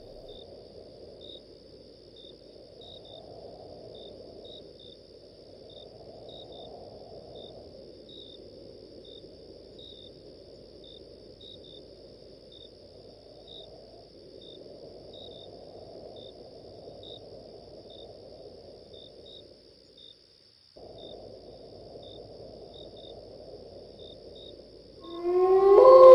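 Night ambience of crickets: a steady high trill with regular short chirps, over a faint low rushing like wind. The ambience breaks off briefly about 20 seconds in. Near the end, a loud pitched sound with gliding tones swells in.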